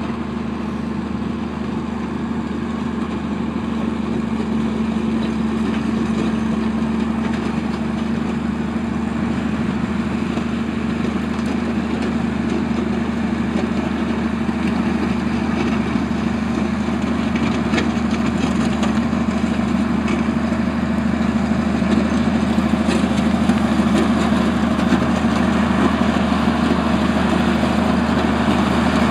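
Old Caterpillar No. 12 motor grader's diesel engine running steadily under load, growing gradually louder as the machine approaches. Gravel grinding under the blade and tyres joins in toward the end.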